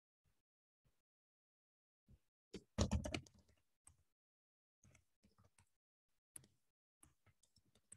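Typing on a computer keyboard: a quick burst of keystrokes about three seconds in, then scattered faint key taps.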